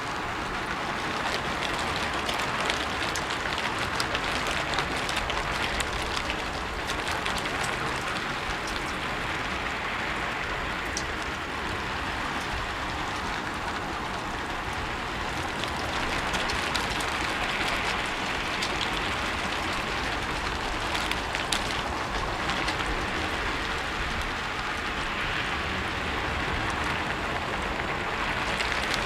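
Steady rain falling on a rooftop: a continuous hiss of rainfall with many separate drops ticking on the roof surface.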